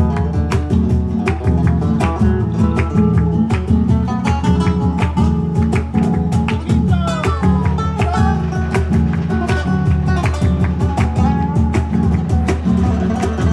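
Flamenco-style Spanish guitar music with fast plucked and strummed chords over a steady bass rhythm.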